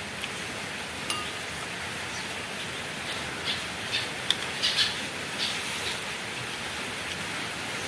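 Steady hiss of background noise with a few light clicks and taps as a laptop battery pack's cylindrical lithium cells and casing are handled and pulled apart.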